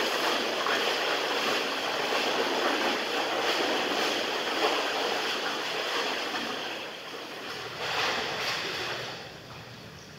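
A swimmer's arm strokes and kicks splashing through pool water in a steady, rhythmic wash. The splashing fades as the swimmer moves away, with a brief surge about eight seconds in.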